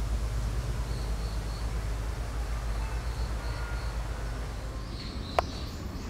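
Outdoor ambience: a steady low rumble under a high, thin call of three quick notes that repeats about every two seconds. A single sharp click comes near the end.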